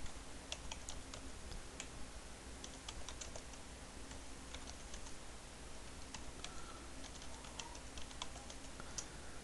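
Typing on a computer keyboard: faint keystrokes at an irregular pace with short pauses, as a web address is typed.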